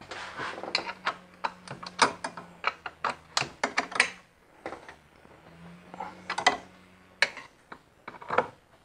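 Quick, irregular metal clicks and clinks of a wrench on the nuts and lock washers that fasten a brake master cylinder to the vacuum booster. The clicks come thickly for the first few seconds, pause, then return in a few short clusters near the end.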